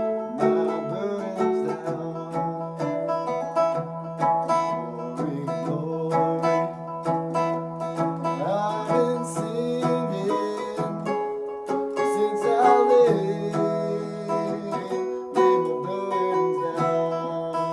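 Three-string cigar box guitar being played: plucked notes over a held low note, with gliding pitch slides about halfway through.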